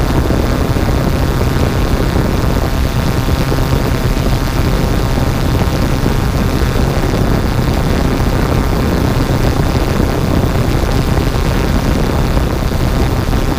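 Yuneec Typhoon G drone's electric motors and propellers running steadily in flight, picked up close by the camera on the drone itself: a constant whine of several close tones over a low rumble.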